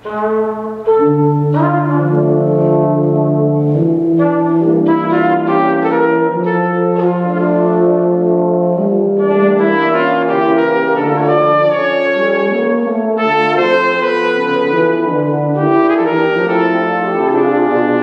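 Tuba and euphonium ensemble, joined by a small brass horn, playing slow sustained chords. It comes back in softly after a brief pause and swells to full volume about a second in.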